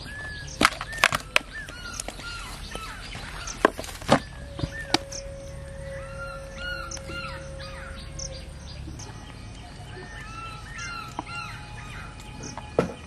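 Crows cawing over and over in short arched calls. Several sharp clicks and knocks stand out above them, loudest in the first few seconds.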